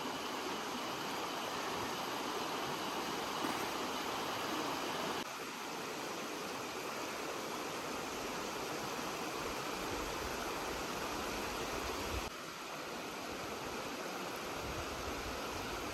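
Shallow river water rushing steadily over rocks, an even splashing hiss.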